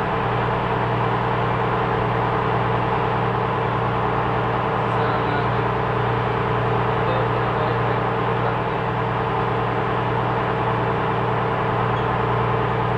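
Steady, loud drone of shipboard machinery: a constant low hum with a few steady higher tones over it, holding even.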